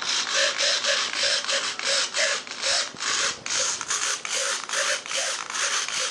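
RC hobby servos whirring in short bursts, about three a second, as the model's control surfaces are flicked back and forth. The run starts and stops abruptly.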